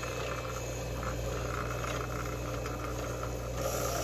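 Vertical metal-cutting bandsaw running free with a steady motor hum and blade whir, the aluminum stock not yet fed into the blade. The sound grows a little louder and brighter near the end.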